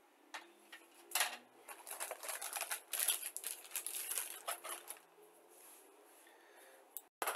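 Clear plastic bags of model-kit sprues crinkling and rustling as they are handled, with quick irregular crackles and light clicks of the plastic parts shifting. It starts about a second in and dies down after about five seconds.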